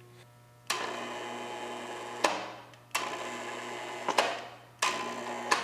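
Electric hoist motor run in three short jogs of about a second and a half, a second, and half a second, each stopping with a clunk, with the lathe tailstock hanging on it.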